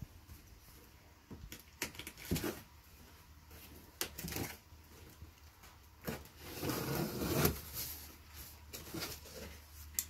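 Packing tape being peeled off the top seam of a large cardboard box and the flaps pulled open: scattered scrapes and rustles, with a longer stretch of tearing and cardboard rustling about six to seven and a half seconds in.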